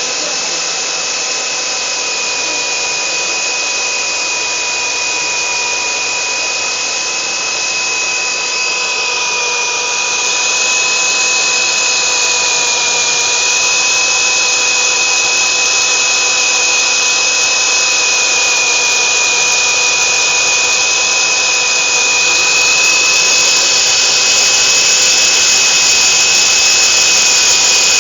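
Husqvarna DM280 electric core drill running steadily with a high whine, its diamond core bit grinding through reinforced concrete. The grinding grows louder about ten seconds in and again near the end.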